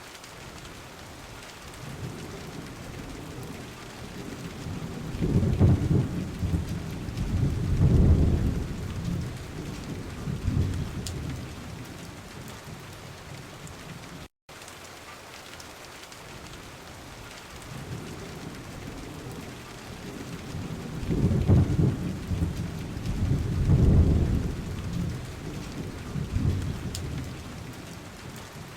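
Recorded rainstorm: steady rain with low rolling thunder that swells and fades twice. After a brief dropout about halfway through, the same stretch of rain and thunder repeats as a loop.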